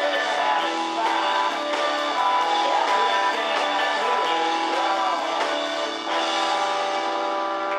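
Live rock band playing at full volume: electric guitars, bass guitar and drums with a steady beat, and a man singing.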